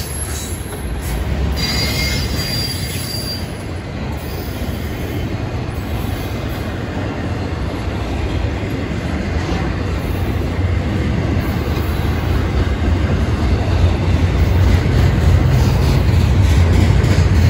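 Freight train cars rolling past close by: a steady rumble of steel wheels on rail, with a brief high wheel squeal about two seconds in. The sound grows louder near the end as the double-stack container well cars go by.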